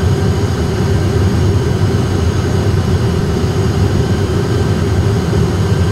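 Airbus A320 cockpit noise on short final approach: a steady low rumble of engines and airflow with a constant hum above it.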